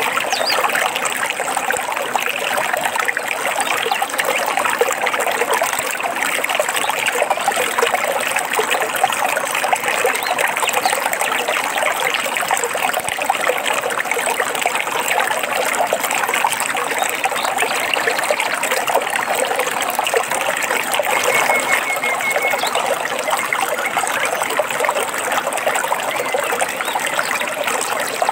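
Stream water running and trickling steadily over stones. A faint, brief bird call comes through about two-thirds of the way in.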